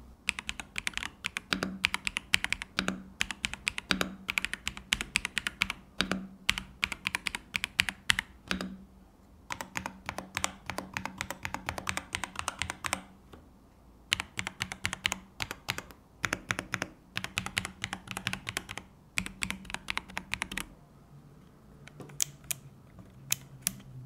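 Typing on a Kzzi K75 Pro, a gasket-mounted 75% mechanical keyboard with PBT keycaps and dampening foam inside. Fast runs of keystroke clacks are broken by two short pauses and thin out to a few scattered keypresses near the end.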